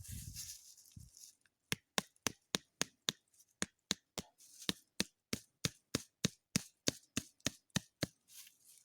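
A tent stake being driven into stony ground: about twenty sharp, evenly spaced strikes, roughly three a second, starting a couple of seconds in.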